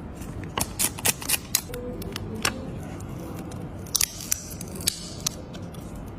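A series of sharp clicks and snaps, about ten in all, in two clusters: one in the first couple of seconds and another around four to five seconds in. They come from handling a phone and its packaging during unboxing, over a steady background hiss.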